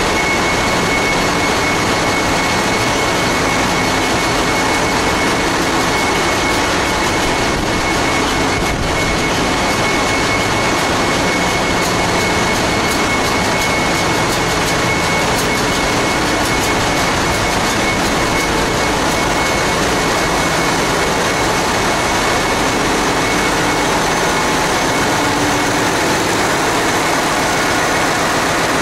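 Loud, steady din of a cargo ship's engine room with its diesel machinery running, among it STX-built MAN diesel generator engines, with a steady high whine on top.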